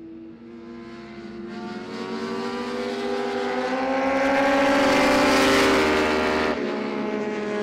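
Racing superbike engines accelerating along the track, the engine note climbing in pitch as they rev out. The sound builds steadily to its loudest about five to six seconds in, then drops sharply about six and a half seconds in.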